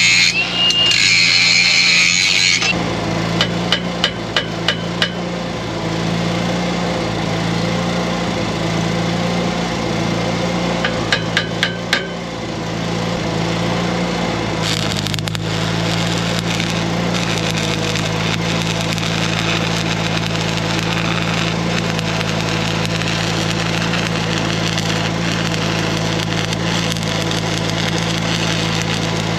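Arc welding on an irrigation pivot's steel pipe: the arc's continuous crackle and sputter over a steady low hum, with a few short runs of sharp ticks. It opens with a louder high hiss that stops about three seconds in.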